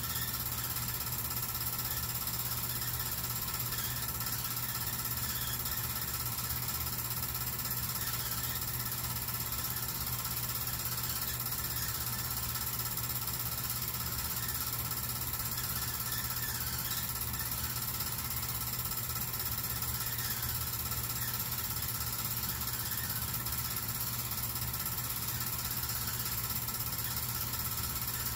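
8mm film projector running: a steady motor hum with the fast, even mechanical clatter of the film-advance mechanism.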